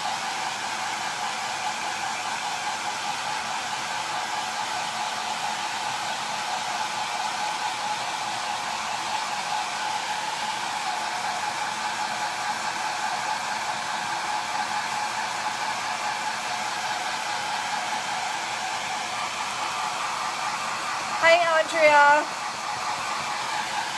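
Handheld hair dryer running steadily, blowing over wet chalk paste to dry it: an even whooshing hum with a steady whine.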